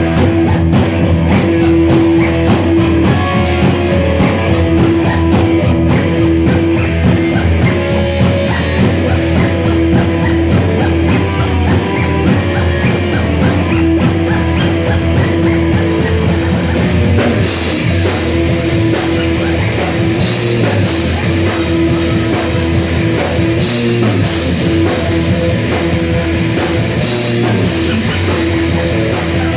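A live rock band playing loudly: distorted electric guitars, electric bass and a drum kit, with keyboards. About halfway through, the drumming's crisp, regular cymbal strikes give way to a washier cymbal sound.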